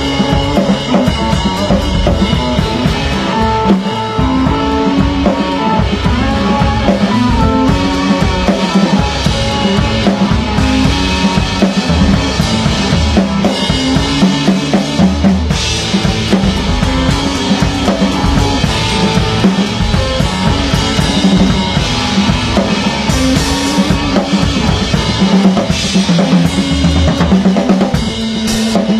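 Live band playing an improvised jam: a drum kit plays a busy, steady beat under pitched instruments holding low melodic lines.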